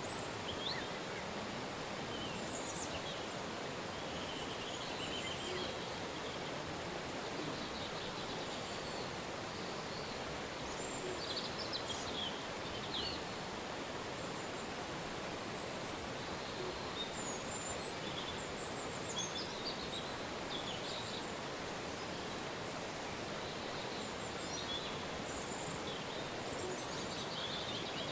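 Steady rush of a river flowing, with birds chirping and whistling over it now and then.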